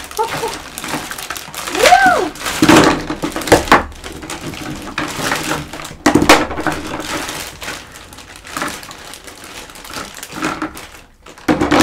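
Plastic toy-playset pieces and their packaging being handled: crinkling with scattered sharp knocks and clicks as parts are knocked together and fitted. A short rising-and-falling voice sound comes about two seconds in.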